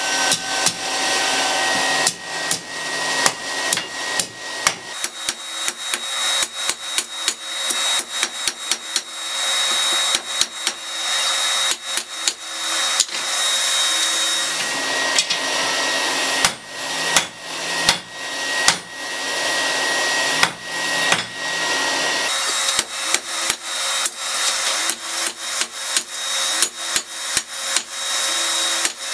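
Hand hammer striking red-hot folded rebar on an anvil to forge-weld it, in runs of quick blows with short pauses between. The anvil rings with a sustained high tone after the strikes, over a steady rushing noise.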